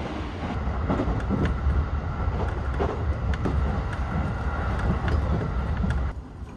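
Electric local train on the Tokaido Line running, heard from inside the carriage: a steady low rumble with occasional sharp clicks. It drops suddenly and becomes much quieter shortly before the end.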